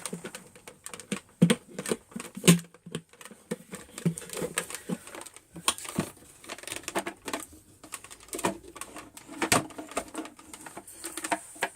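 Irregular clicks and knocks of hard plastic as a vacuum cleaner is handled, with no motor running.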